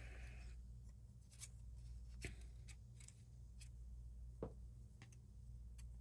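Faint handling of die-cut cardstock pieces: scattered light taps and rustles as the paper is picked up and moved, over a low steady hum.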